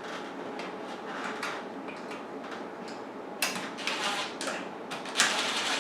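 A few light knocks and clicks of hardware being handled, the loudest about five seconds in, over a steady hum.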